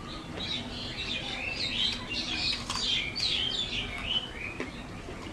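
Small birds chirping, a quick run of short rising and falling chirps that is loudest in the middle and dies away near the end.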